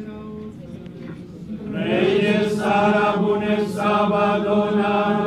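Nuns and friars singing a liturgical chant together. A quieter voice holds a low note at first, then the full group comes in about two seconds in with louder, held notes.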